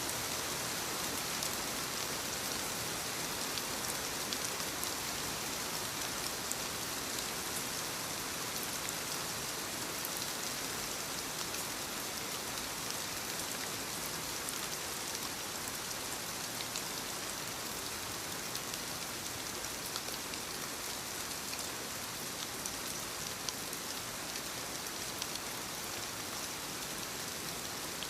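Steady rainfall: an even hiss of rain with many small drop patters scattered through it.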